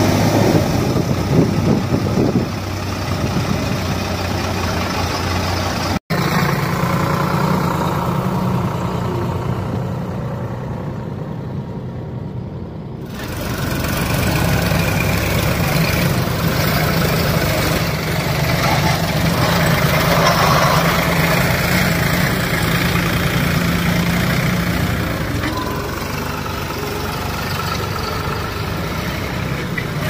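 Diesel engines of farm tractors and a backhoe loader running steadily, with a brief dropout about six seconds in.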